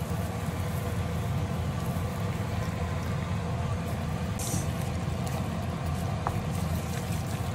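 Stir-fried vegetables simmering in a pan over a steady low hum, with a brief hiss about four and a half seconds in.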